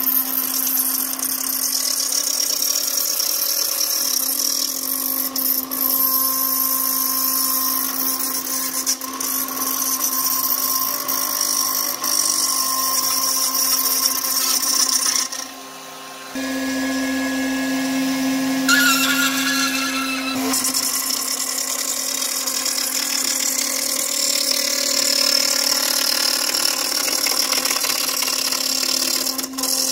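CNC router spindle running a 1/4" solid carbide upcut single O-flute end mill, milling 3form Chroma plastic sheet: a steady spindle whine with a bright hissing cutting noise over it. About halfway the level dips, and for a few seconds the hiss of cutting drops out, leaving the whine with some higher steady tones, before cutting picks up again.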